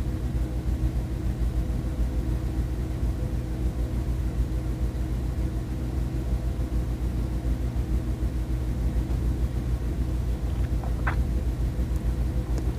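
Steady low hum of room tone with a faint rumble. A brief faint chirp sounds near the end.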